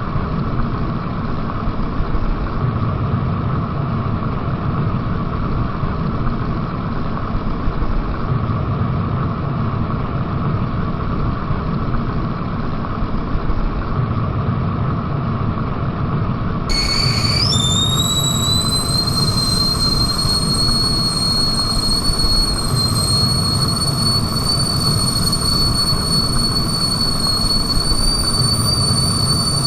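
Kettle heating to the boil with a steady rumbling hiss. About halfway through its whistle starts, quickly rising in pitch and then holding a steady high note, the signal that the water is boiling.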